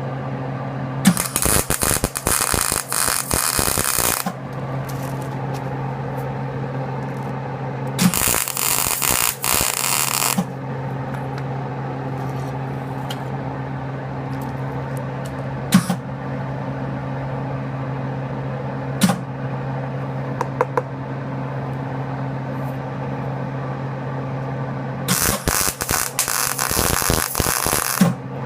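Arc welder laying three short tack welds on a worn grain drill wheel rim, each a crackling burst of two to three seconds, over a steady electrical hum. A few sharp clicks fall between the welds.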